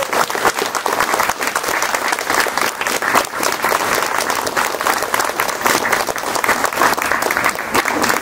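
Wedding guests applauding, a steady dense patter of many hands clapping, greeting the couple's first kiss as husband and wife.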